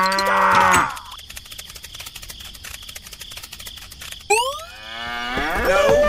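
A cow mooing: one long, low call that ends about a second in. About four seconds in comes a quick rising whistle-like glide, then another wavering call near the end.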